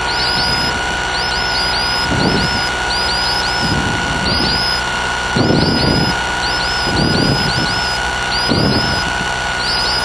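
Mazda rotary engine of a Dyke Delta homebuilt aircraft idling on the ground, heard through the aircraft's intercom, with a steady high whine over it.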